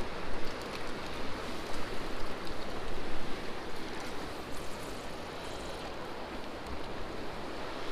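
Steady rush of flowing river water, with an uneven low rumble that settles down after about three seconds.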